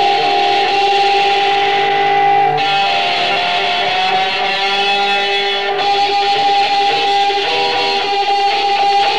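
Live punk band recording: electric guitars hold sustained, droning notes, and the sound shifts a couple of times.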